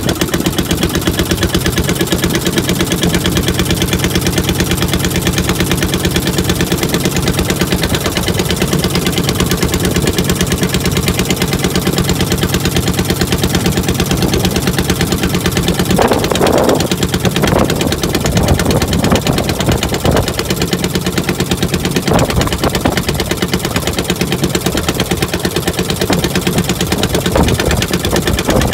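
Small inboard boat engine with an exposed flywheel running steadily with an even, rapid firing beat. A few brief louder noises break over it around the middle.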